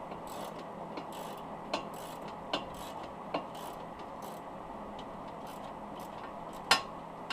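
Hand ratchet clicking as bolts are run up snug but not yet torqued. A few clearer clicks come under a second apart, and there is a loud sharp metallic click near the end.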